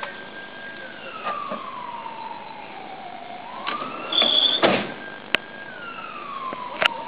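An emergency siren wailing in slow cycles, rising, holding high and falling about every five seconds. Over it come clanks and rattles of rescue equipment being handled: a scoop stretcher and an oxygen cylinder being lifted out of an ambulance, with the loudest clatter about four seconds in.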